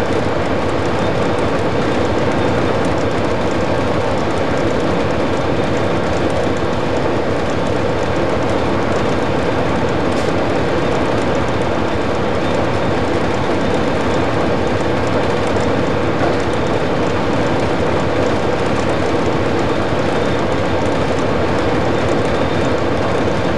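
Steady running noise inside the cab of an Amtrak P40-8 diesel-electric locomotive moving at speed: the diesel engine and the wheels on the rails blend into one continuous drone.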